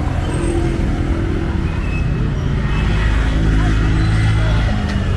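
Steady city traffic noise with a low engine rumble from a motor vehicle that swells about three to four seconds in.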